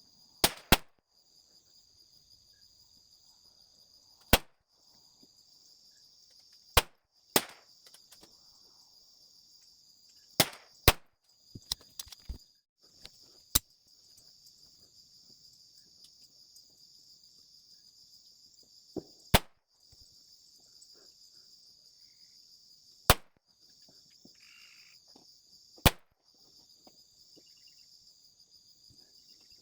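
S&W Victory .22LR target pistol fired single shots at irregular intervals, about a dozen sharp cracks spaced a few seconds apart, some in quick pairs. A steady high-pitched insect chirring runs underneath.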